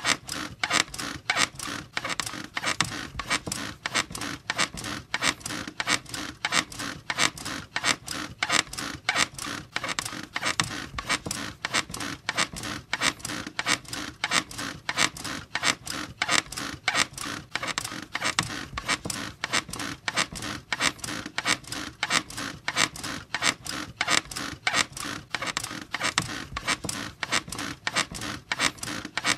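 Bed squeaking over and over in a steady, even rhythm.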